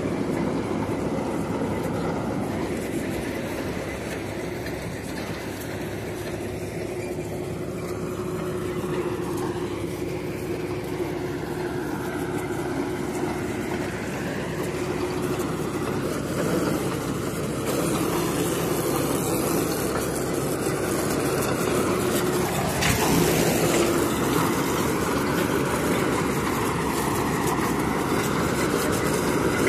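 Truck-mounted borewell drilling rig's engine running steadily with a constant hum. A single knock comes about three-quarters of the way through.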